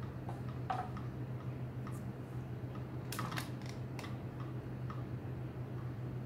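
Tail comb backcombing a section of a mannequin's hair: a few brief comb strokes and light clicks, most of them about three to four seconds in, over a steady low hum.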